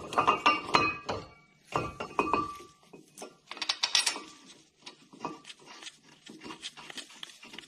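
Metal clinks and knocks as a brake caliper carrier is fitted over the disc onto the hub and its mounting bolts are put in by hand. The clinks come in clusters, some ringing briefly, during the first two and a half seconds, then turn fainter and scattered.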